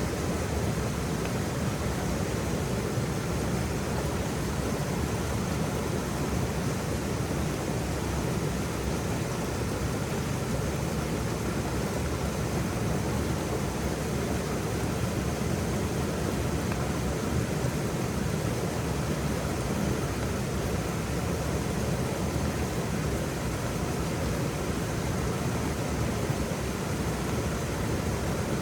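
Waterfall pouring, a steady, even rush of water without a break.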